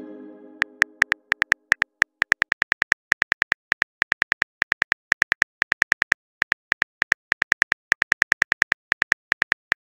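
Simulated phone keyboard key-clicks as a text message is typed: a quick run of short, sharp clicks, about five or six a second, with brief gaps between bursts. At the start, the tail of a pitched message-notification tone fades out.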